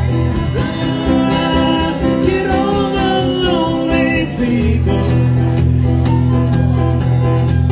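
A live acoustic band plays in a country-rock style, with strummed acoustic guitars, a flute, an electric bass and drums. A wavering melody line with vibrato stands out over the first half, while the deep bass drops back and then returns.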